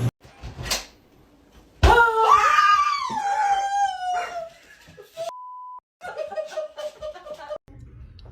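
A person lets out a sudden, loud scream of fright about two seconds in: one long, high cry that falls in pitch. It is followed by a short, steady censor beep and some quieter voices.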